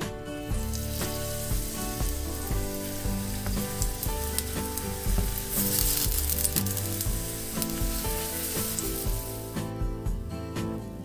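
Slices of peeled eggplant sizzling in hot vegetable oil in a stainless steel frying pan as they are laid in one by one. The sizzle swells as more slices go in and is loudest in the middle, then dies down near the end.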